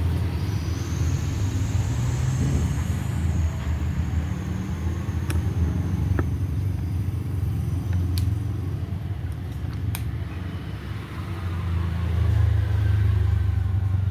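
A steady low rumble with a few faint, sharp clicks scattered through it.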